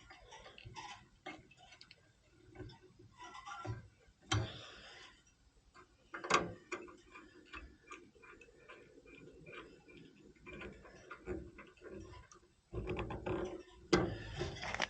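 Irregular small clicks and ticks of tools and metal parts being handled, with a couple of sharper knocks about four and six seconds in and a denser clatter near the end.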